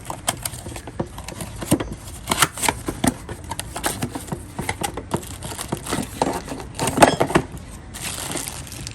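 Cardboard box and packaging being opened and handled: an irregular run of clicks, knocks, rustles and crinkles, with a louder cluster about seven seconds in.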